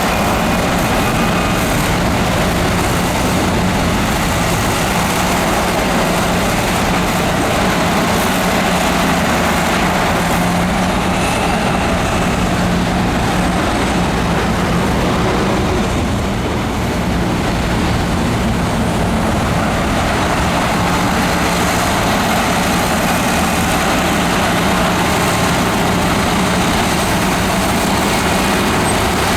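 Heavy earthmoving machinery, a bulldozer or dump truck diesel engine, running steadily with a constant low drone. The level dips briefly a little past the middle.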